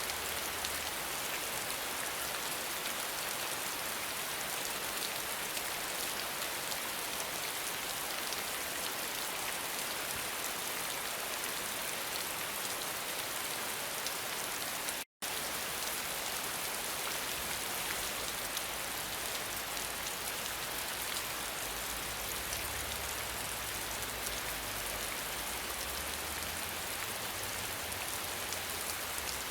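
Steady, even rain falling, broken by a split-second total silence about halfway through.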